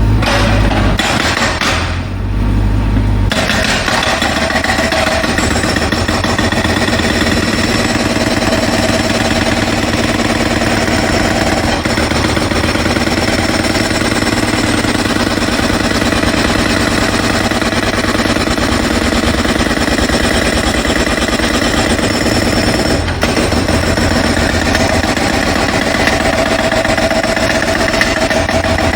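Pneumatic breaker (jackhammer) breaking up the ground at roadworks, hammering rapidly and without a break, with a steady drone under it. A deep low rumble drops away about three seconds in.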